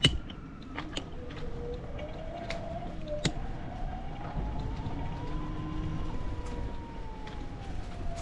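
A siren wailing in the distance, its pitch rising slowly over several seconds and then falling again. A few sharp clicks sound over it, the loudest right at the start.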